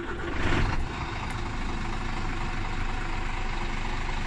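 Scania G460 truck's 13-litre six-cylinder diesel starting. Just after it catches it runs up briefly for about half a second, then settles into a steady idle.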